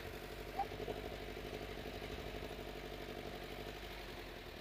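A motor vehicle's engine running steadily at low speed, with a brief high note about half a second in.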